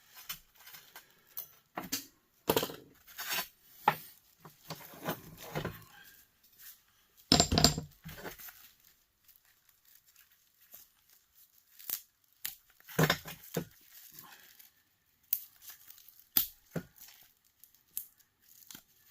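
Scattered clicks and clinks of small metal parts and tools as a small electric heater is pried apart by hand. There are louder bursts of scraping noise about seven seconds in and again near thirteen seconds.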